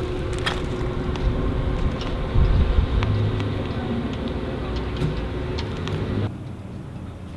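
Outdoor ambience: wind rumbling on the microphone over a steady hum, with scattered small crunches like footsteps on gravel. It drops suddenly to a quieter background about six seconds in.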